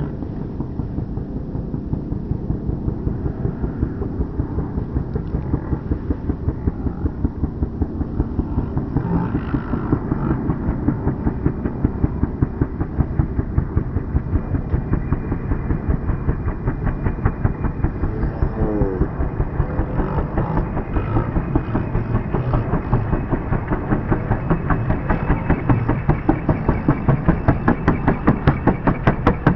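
Helicopter coming in to land, its rotor blades beating in a rapid, even pulse over the turbine noise, growing louder over the last few seconds.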